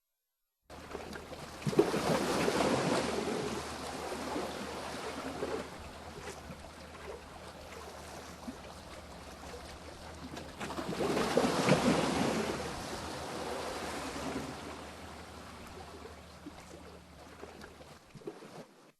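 Waves washing in, swelling up twice about nine seconds apart, over a steady low hum.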